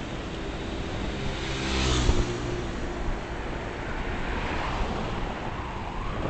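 Steady road and wind noise from a vehicle driving along, heard through a dashcam microphone, with engine sound swelling briefly about two seconds in.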